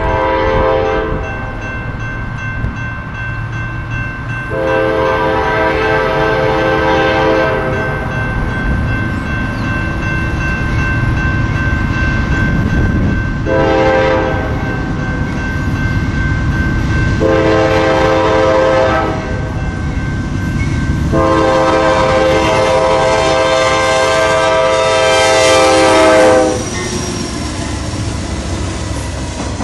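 Norfolk Southern diesel freight locomotive sounding its air horn in five blasts of varied length, the last held about five seconds, over the steady rumble of the approaching train. The horn cuts off as the locomotive passes close by, leaving the engine and wheels rumbling.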